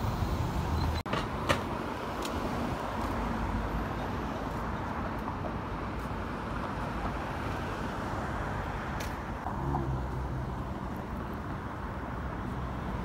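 Steady road traffic noise of cars on a city street, broken by a brief dropout about a second in.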